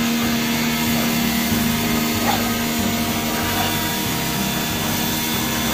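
A steady machine hum with a hiss, like a running electric motor, that starts suddenly and holds level, with background music underneath.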